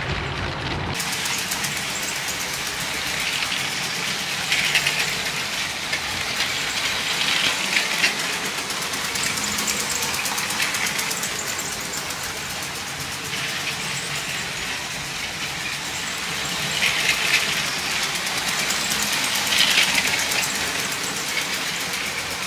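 Motorized LEGO train running on plastic LEGO track: a steady clattering hiss of many small clicks from the wheels on the rails, swelling a few times as the train passes closer.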